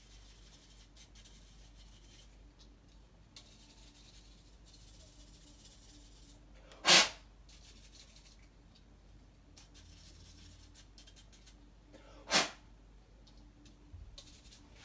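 Two short, sharp puffs of breath, about five seconds apart, blowing dust out of a laptop's cooler fan, with faint rustling between them.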